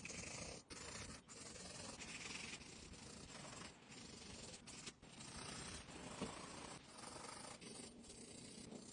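Pencil scratching across paper in repeated sketching strokes, each lasting roughly half a second to a second, with brief breaks between them.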